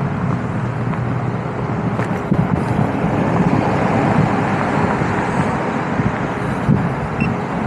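Steady road traffic noise, cars running past with no break in the sound.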